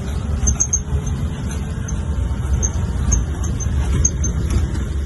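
Safari vehicle's engine running as the vehicle drives, a steady low rumble heard from inside the cab.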